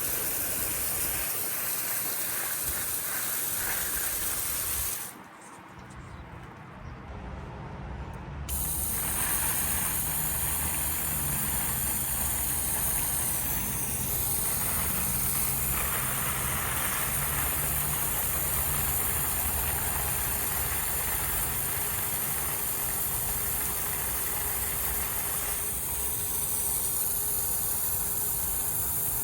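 Water spraying steadily from a garden hose onto plants, a continuous hiss that drops away for a few seconds near the start and then resumes.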